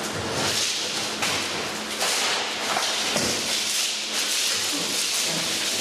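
A shattered but still one-piece sheet of shatterproof safety glass crackling and crunching as it is bent and pushed into a metal skip, with knocks against the skip about two and three seconds in.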